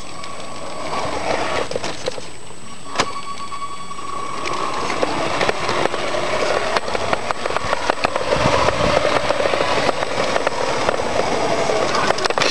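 Tamiya 1:14 scale RC Freightliner truck driving, its electric motor and gearbox giving a steady whine, with a single knock about 3 seconds in. From about halfway through, a dense crackle of the tyres rolling over paving and stones covers it, loudest a little past the middle.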